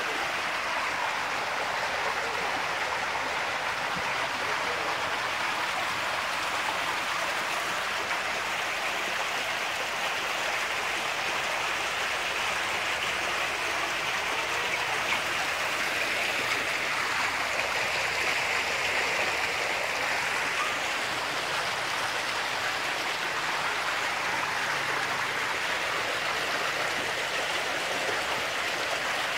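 Muddy water rushing along a freshly dug earthen drainage ditch: a steady, even rush of flowing water.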